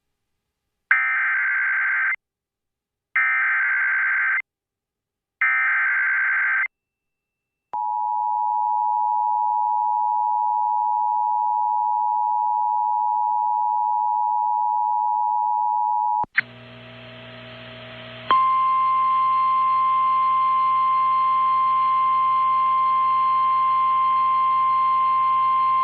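Emergency Alert System broadcast tones: three short warbling bursts of SAME digital header data, then the steady two-tone EAS attention signal for about eight seconds. About 16 s in, radio receiver hiss and hum begin, and from about 18 s on the single steady 1050 Hz NOAA Weather Radio warning alert tone sounds.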